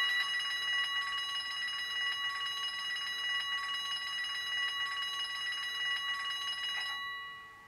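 Steady high-pitched bell-like ringing, held for about seven seconds and fading out near the end.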